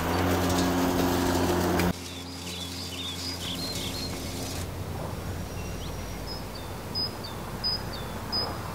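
Battery lawn mower's electric motor and blade running with a steady hum, which cuts off abruptly about two seconds in. After that comes a quieter open-air background with birds chirping, including three short high chirps near the end.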